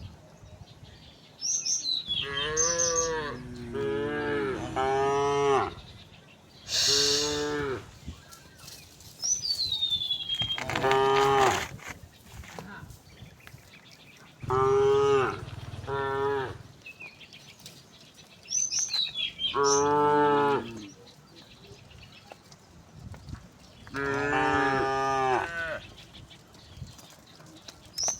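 Cows mooing, about seven long calls a few seconds apart, some overlapping. Short falling bird chirps come between the calls.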